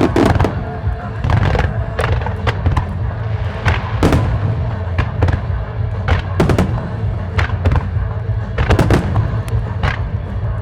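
Aerial firework shells bursting in a rapid music-synchronised starmine: many sharp reports, some in quick clusters, over pop music playing from loudspeakers.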